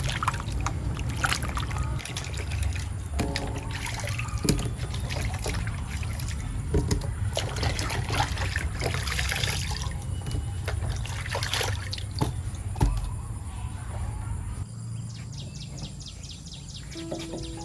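Water trickling and splashing, with scattered knocks and clatters over a steady low rumble.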